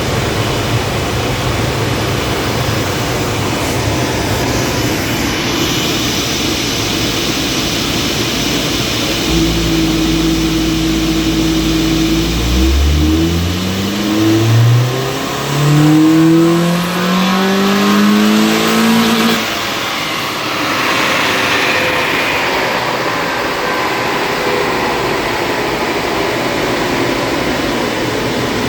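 Honda EK Civic's D-series four-cylinder engine making a full-throttle power run on a chassis dyno. It holds a steady note at first, then from about twelve seconds in its pitch climbs steadily for around seven seconds and cuts off as the throttle is released. Under it runs the steady rush of air from a leaf blower fed into the intake and a cooling fan.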